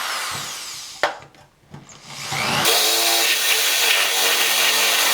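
A power drill boring out a hole to enlarge it. It winds down over the first second, with a sharp click about a second in. After a short pause it spins up again and runs steadily.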